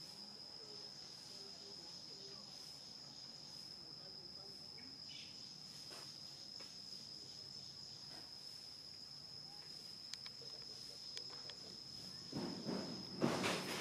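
Steady high-pitched insect drone, holding one thin tone throughout, with a few faint clicks. A louder burst of rough noise comes in near the end.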